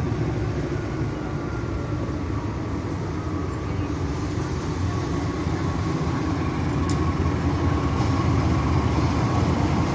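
CC206 diesel-electric locomotive approaching at the head of a passenger train, its engine's low rumble slowly getting louder, with a thin steady high whine over it and one brief click near the end.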